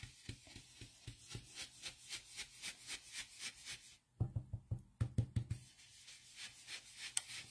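Ink blending brush dabbing on cardstock: soft, quick taps about four a second, with a louder run of taps a little past halfway.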